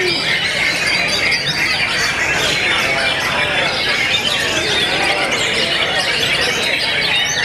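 Many white-rumped shamas (murai batu) singing at once, a dense, unbroken tangle of overlapping quick whistles, trills and chirps as the caged birds compete against each other.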